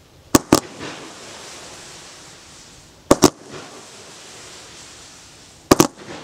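An 80-shot V-shape silver comet firework cake firing three volleys about every two and a half seconds. Each volley is a pair of sharp launch reports in quick succession, with a steady hiss in between.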